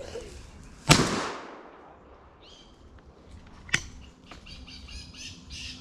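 A single shotgun shot about a second in, echoing through the woods and dying away over about a second. A sharp click follows a few seconds later.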